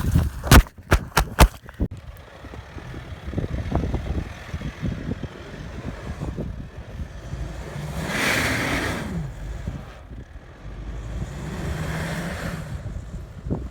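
An off-road SUV's engine running under load, swelling twice as it revs, with the pitch rising and then falling in the first swell. A few sharp knocks come in the first two seconds.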